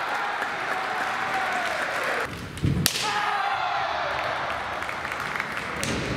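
Kendo fencers' drawn-out kiai shouts, each sliding down in pitch, broken about three seconds in by the sharp crack and thud of a bamboo shinai strike. A few lighter clacks come near the end.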